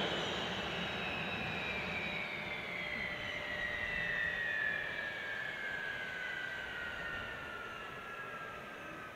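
Kawasaki T-4 jets' IHI F3 turbofan engines winding down after shutdown: several high whines falling steadily in pitch and fading.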